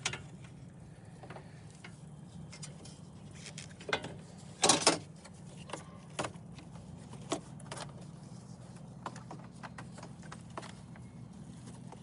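Scattered light clicks and knocks of hand work on car parts, with a louder short clatter about five seconds in, over a steady low hum.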